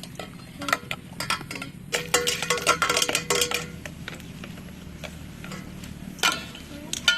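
Metal cooking utensils and pots clinking and knocking together in scattered strikes, with a busy run of clinks about two seconds in and two single clinks near the end, over a low steady hum.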